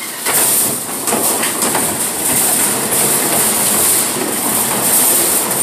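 Wire shopping cart being pushed across a hard store floor, its wheels and basket rattling continuously.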